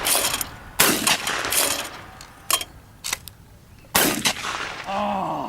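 Shotgun shots. There is a loud report at the start, another about a second in and another about four seconds in, with a sharper, quieter crack about halfway, and each report trails off in echo.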